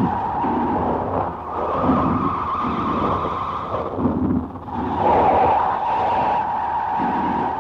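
Experimental noise-music recording from an early-1990s cassette compilation: a harsh hissing drone centred in the middle range that breaks off and starts again every one to two seconds, over low throbbing pulses about once a second.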